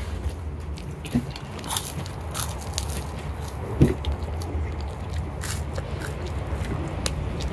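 Children chewing and biting into roasted, burnt marshmallow cone candies: scattered short crunches and mouth clicks over a steady low rumble.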